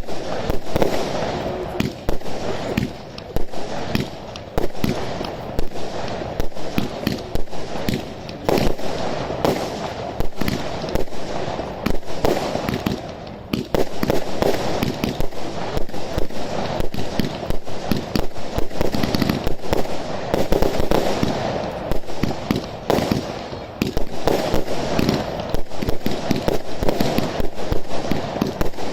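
A dense, continuous run of sharp pops and cracks, many a second at irregular spacing, over a steady crackling hiss.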